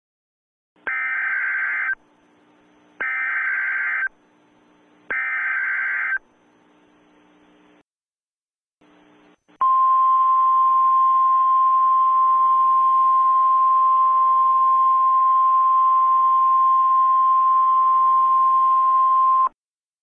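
Emergency Alert System header: three one-second bursts of screeching data tones, about a second apart. After a brief gap comes a single steady attention tone that holds for about ten seconds and then cuts off, over a faint radio hiss.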